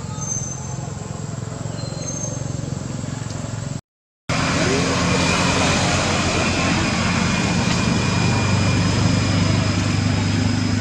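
Steady low engine-like hum, as of a motor vehicle idling, over outdoor background noise. The sound cuts out completely for a moment about four seconds in and comes back louder.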